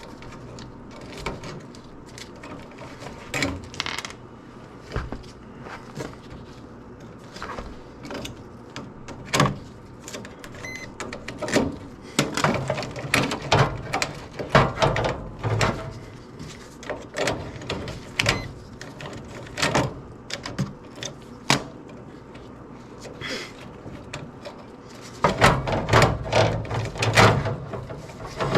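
Irregular clicks, knocks and clatter of hand tools and parts being handled, with a denser burst of knocking and rattling near the end.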